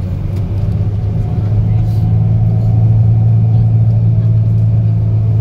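Scania K400EB tour coach's engine droning steadily while driving, heard inside the passenger cabin; the drone grows a little louder about a second and a half in.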